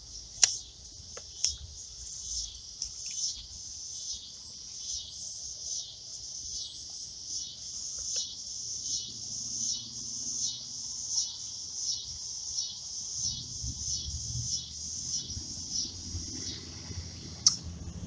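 Insects calling in a steady chorus of high-pitched pulses, about two a second. A few sharp clicks stand out near the start and near the end.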